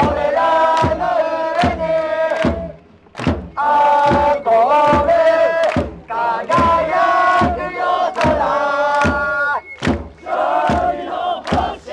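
A crowd of football supporters chanting a song in unison, punctuated by rhythmic hand claps at a steady beat. The chant breaks off briefly between phrases, about three, six and ten seconds in.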